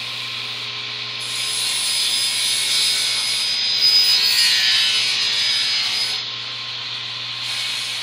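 Table saw running with an 80-tooth blade and ripping through a melamine-laminated board. The cutting noise builds about a second and a half in, is loudest around the middle, and eases back to the motor's steady running near six seconds.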